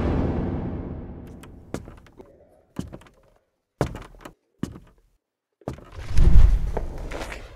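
A heavy thunk that echoes through a large hall and dies away over about two seconds. A few scattered knocks follow, then about six seconds in a louder, deep booming hit.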